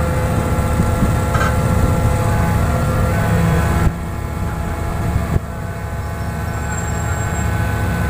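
Heavy diesel machinery engine running steadily, likely the crane of a hydraulic static pile driver lifting concrete piles. The level drops suddenly about four seconds in, and there is a short knock about a second and a half later.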